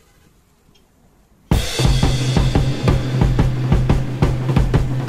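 Background music with a drum kit and a steady bass line that cuts in suddenly about a second and a half in, after a brief stretch of near quiet.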